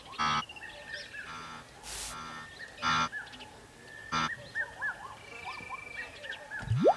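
Wildebeest giving short nasal honking calls, four of them about a second apart, over a background of small repeated bird chirps. Near the end a loud sound effect glides steeply upward in pitch.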